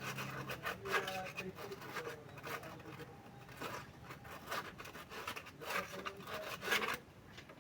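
Irregular rubbing and scraping strokes, stopping suddenly about seven seconds in.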